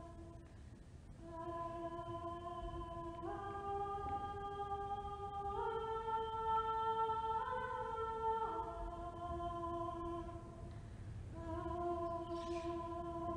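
A single voice singing long, wordless held notes, each lasting a second or more. The pitch steps upward a few times, then drops back to the low note. After a short break about ten seconds in, the singing starts again low and steps up near the end.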